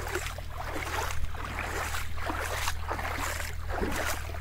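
Bare feet splashing through shallow river water in a string of wading steps, over a steady low rumble of wind on the microphone.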